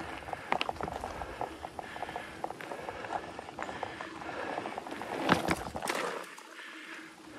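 Specialized Stumpjumper mountain bike rolling over a dirt trail: a steady rush of tyre and rolling noise with a scatter of small rattles and clicks from the bike. The loudest clatter comes about five seconds in.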